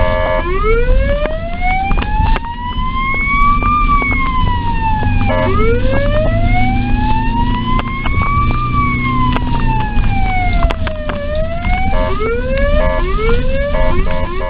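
Ambulance siren in a slow wail, rising and falling twice over about ten seconds, then switching to a fast pattern of short rising sweeps repeating under a second apart. Short horn blasts cut in near the start and again near the end.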